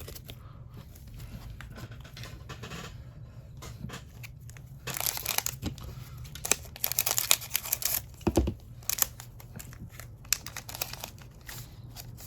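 A trading card pack's wrapper being torn open and crinkled, in dense bursts of rustling about five to eight seconds in, with a short thump just after, among lighter handling of the cards and packaging.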